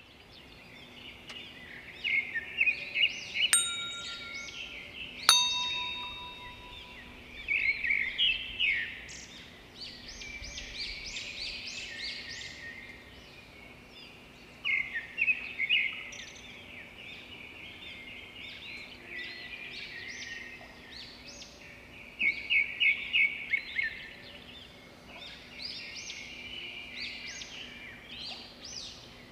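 Birds chirping and singing in clusters of rapid repeated notes, on and off throughout. Two bright chime dings ring out a few seconds in, the second one louder.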